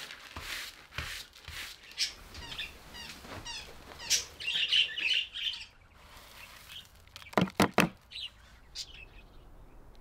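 Hand brush sweeping seed husks and feathers into a plastic dustpan in short scratchy strokes, with budgerigars chirping. Near the end four quick sharp knocks as the dustpan is emptied into a plastic tub.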